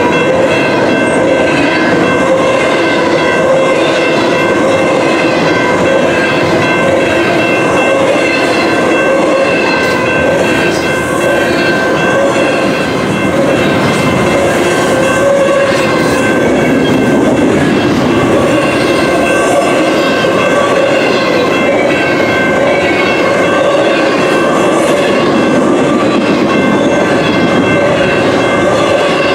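Double-stack container cars of a long freight train rolling past, their wheels clicking over the rail joints in a steady rhythm, with a steady high metallic ringing over the rumble.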